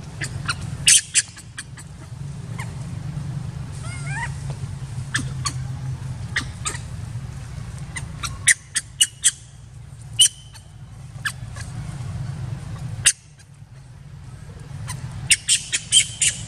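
Juvenile long-tailed macaque crying in bursts of short, shrill squeals that come several a second, with a brief rising squeal about four seconds in.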